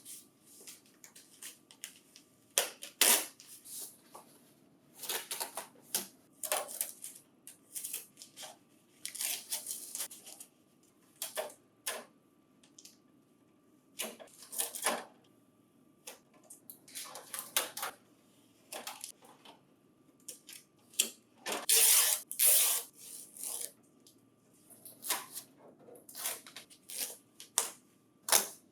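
Packing material being pulled off a booklet finisher: irregular bouts of rustling, crinkling and scraping, with a louder, denser stretch about two-thirds of the way through.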